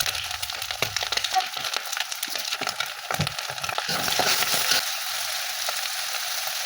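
Kwetiau (flat rice noodles) frying in hot oil in a pan, sizzling and crackling steadily while being stirred, with small clicks of the utensil through the sizzle.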